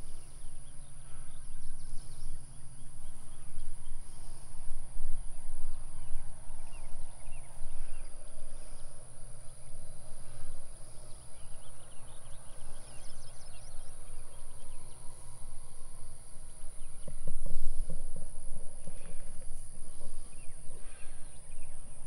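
A chorus of insects giving a steady high-pitched buzz, over an uneven low rumble.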